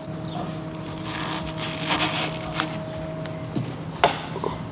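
Rustling and scraping of a car's rear spoiler being handled and pressed into place on double-sided tape, with a sharp knock about four seconds in, over a steady low hum.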